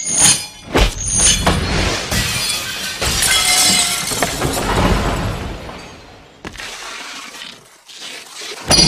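Steel arm rings clanging with a ringing tone twice in the first second and a half. Then a long, loud shattering crash of breaking debris fades out over several seconds. A sharp loud hit comes just before the end.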